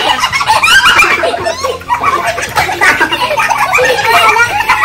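A group of people laughing loudly together, many voices overlapping in a continuous burst of laughter and exclamations.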